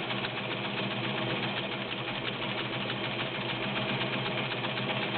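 Vintage all-metal White model 614 sewing machine, with its 1.3 amp motor, running steadily at speed while sewing a solid scallop decorative stitch: an even motor hum with fast, regular needle ticking.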